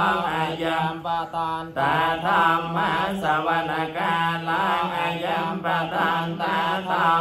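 Buddhist paritta verses chanted in Pali, an even, continuous recitation over a steady low sustained tone, with a short breath pause about a second and a half in.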